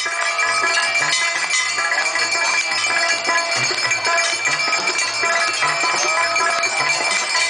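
Bells ringing continuously with devotional music during a Hindu aarti lamp ceremony, metallic strikes repeating densely over a low beat about twice a second.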